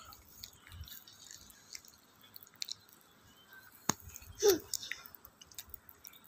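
A quiet pause filled with small clicks and handling noises as a printed paper calendar is moved about. There is a sharp click about four seconds in, and just after it a brief sound that falls in pitch.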